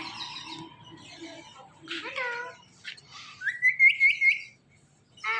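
Ring-necked parakeets calling: a short call about two seconds in, then a rising whistle broken into quick repeated notes.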